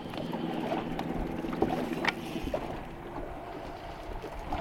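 Steady low rumble of water and light wind around a small fishing boat, with a few faint clicks.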